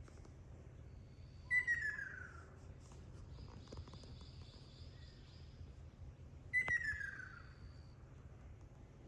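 Ruddy kingfisher (Ryukyu subspecies) calling twice, about five seconds apart. Each call is a falling trill lasting about a second.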